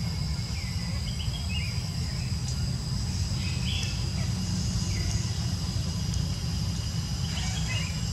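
Outdoor ambience: a steady low rumble under a constant high-pitched insect drone, with a few short high chirps or squeaks about a second in, near the middle and near the end.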